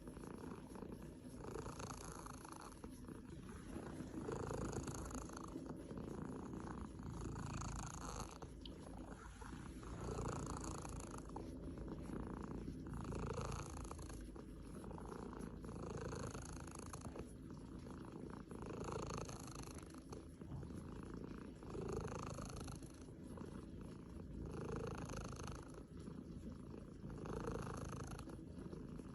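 Domestic cat purring continuously while being massaged, the purr swelling and easing with each breath about every three seconds.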